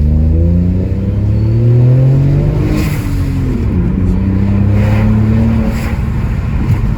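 Ford Focus 1.0 EcoBoost three-cylinder turbocharged engine accelerating hard. The revs climb for about two and a half seconds, drop at a gear change, then pull up again. It pulls cleanly, without hesitation.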